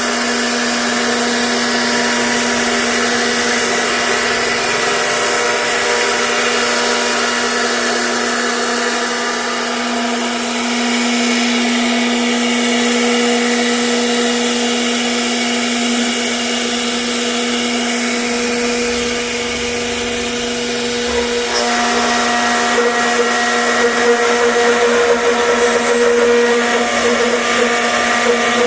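CNC router spindle running as it carves wood, a steady whine with several constant tones. About three quarters of the way through the tones shift and it gets a little louder.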